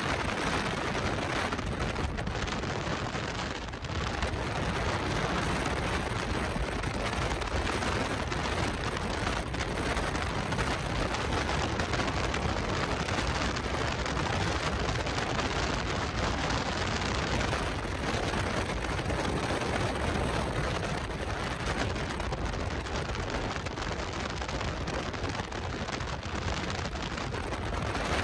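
Steady rushing noise of wind and water, dipping briefly about four seconds in.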